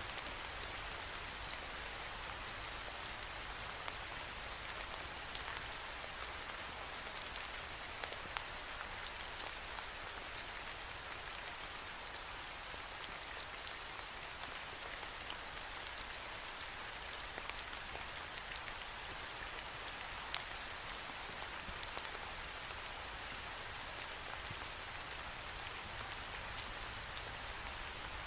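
Steady rain falling against a window pane, a continuous hiss with scattered sharper ticks of individual drops striking the glass, over a faint low rumble.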